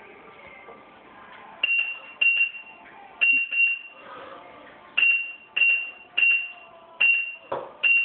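Proliner 3D digitizer beeping: about ten short, high beeps, several in quick pairs, starting about a second and a half in. The operator sets off each beep as he takes points along the cabinet edges with the wire probe.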